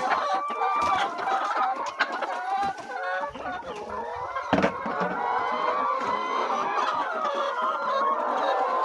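A flock of laying hens clucking and calling over one another continuously, with a few clicks and a single sharp thump about halfway through.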